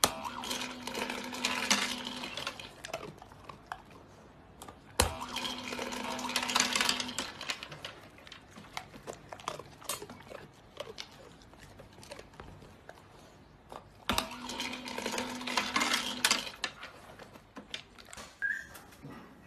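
Push-button automatic pet treat dispenser pressed by a dog's paw three times. Each press gives a click, then about two seconds of the dispenser's motor humming steadily while kibble rattles out into the tray.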